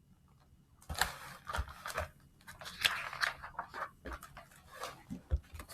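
Paper rustling and crinkling with soft taps and thumps: the pages of a picture book being handled and turned. It comes in irregular bursts starting about a second in.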